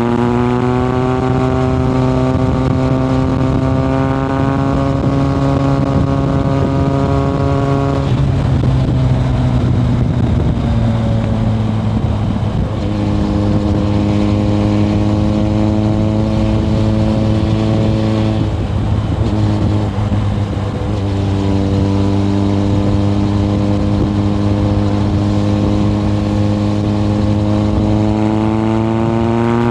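A Kawasaki ZRX1100's inline-four engine through a Yoshimura exhaust, heard onboard while riding: it runs steadily under way. Its pitch breaks and settles lower about eight seconds in and again around twenty seconds in, then climbs near the end as it accelerates.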